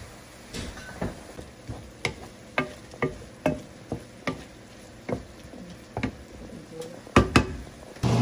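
Wooden spoon stirring chicken and seafood in a frying pan, knocking and scraping against the pan about twice a second, with two louder knocks near the end.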